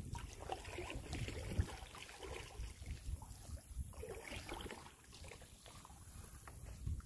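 Water splashing and trickling around a moving kayak as it is paddled, in irregular bursts. Wind rumbles on the microphone during the first second or two.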